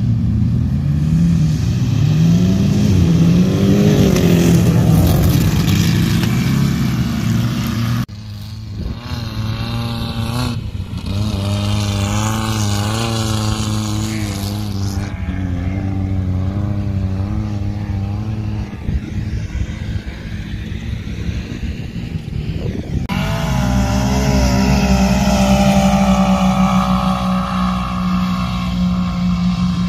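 Engine of a 2020 Polaris RZR XP4 side-by-side running under way, its pitch climbing and dropping as the throttle is worked. The sound changes abruptly about eight seconds in and again past twenty seconds, with the engine steadier in the middle stretch.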